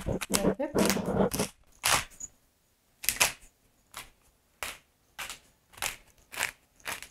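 Hand-twisted pepper mill grinding black pepper: a dense run of grinding at first, then short crunches about two a second, one for each twist of the mill.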